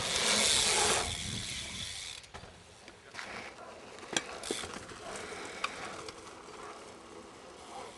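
A BMX bike's rear hub ratcheting as the bike coasts. A loud rushing noise in the first second dies away, and a few sharp clicks follow, about three, four and five and a half seconds in.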